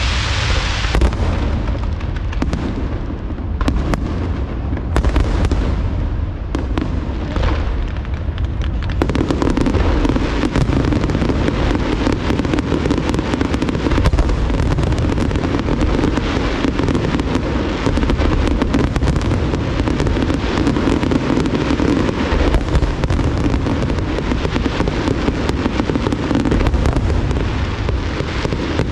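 Large aerial fireworks display: shells bursting with sharp bangs and crackle, scattered at first, then from about nine seconds in a dense, continuous barrage of rapid bursts.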